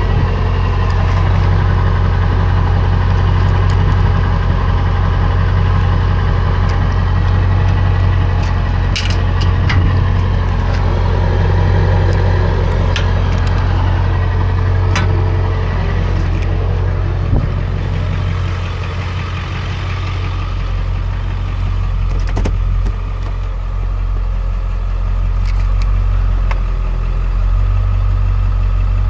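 Truck driving with its engine running steadily, a constant low hum with road noise and a few sharp clicks and knocks.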